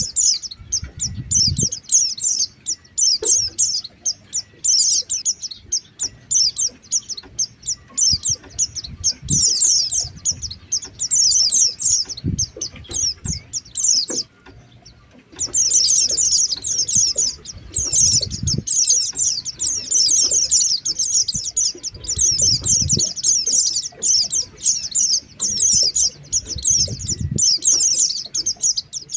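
White-eyes (pleci) twittering in rapid, high, chattering bursts, the call used as a lure sound to draw in wild white-eyes. The bursts run almost without pause, breaking off briefly about halfway.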